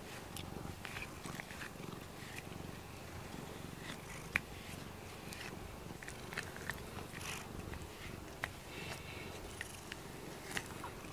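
Domestic cat purring steadily while being brushed with a rubber-bristled grooming brush, with scattered light scratches and clicks from the brush strokes.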